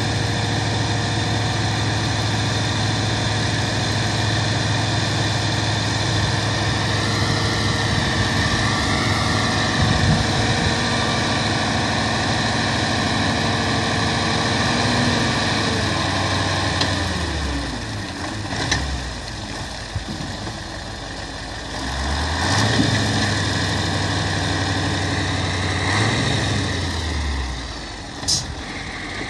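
Dump truck's diesel engine running steadily while the tipper bed is raised and the load pours out, with a wavering whine in the first third. About two-thirds of the way through the engine note drops, rises again for a few seconds, and falls once more near the end.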